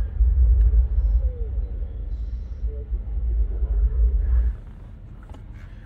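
A film's soundtrack playing through the truck's sound system: a deep rumble with faint voices over it. It cuts off abruptly about four and a half seconds in as the video is closed.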